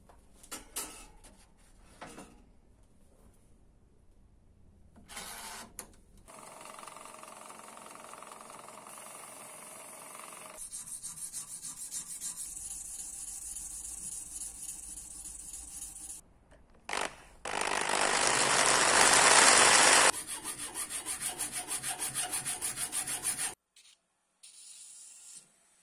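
Abrasive hand-working on a knife part: short runs of back-and-forth rubbing strokes, in places about four a second, with a louder, even stretch of rubbing past the middle.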